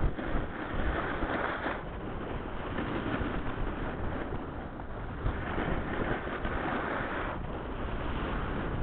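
Wind buffeting the microphone over the rushing scrape of a snowboard sliding downhill on packed snow, with louder hissing carves about a second in and again from about five to seven seconds.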